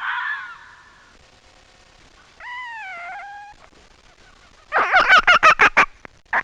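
Fox calls: a short harsh cry, then a drawn whining call about two and a half seconds in, then a fast run of about eight short yelping barks near the end, followed by one more.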